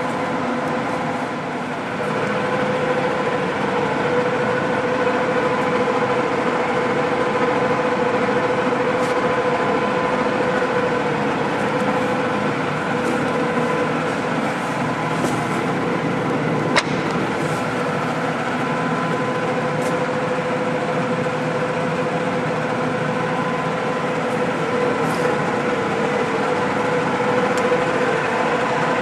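American Pacemaker engine lathe running under power, its 18-inch four-jaw chuck spinning: a steady mechanical run from the headstock gearing with a steady whine in two pitches, and one sharp click about 17 seconds in.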